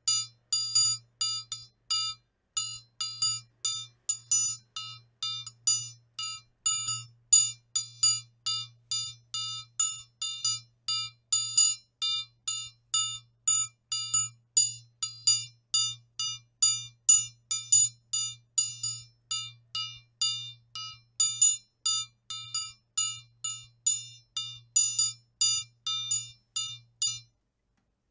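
Metal triangle struck over and over at an even pace, about two strikes a second, each a bright high ring that dies away quickly; the strikes stop near the end.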